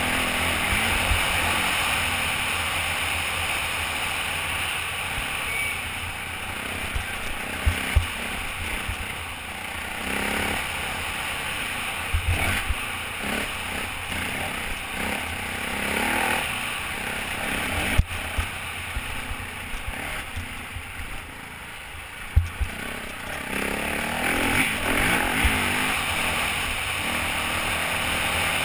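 Off-road motorcycle engine running under a rider on a rough dirt trail, revving and easing off, heard through a helmet-mounted camera with wind noise and a few sharp knocks from bumps. The engine drops off for a few seconds about two-thirds of the way through, then picks up again near the end.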